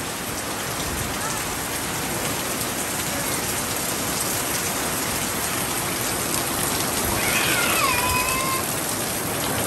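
Heavy rain pouring steadily onto pavement and onto a fabric deck awning, with water streaming off the awning's edge. A brief high call falls in pitch and then holds, about seven seconds in.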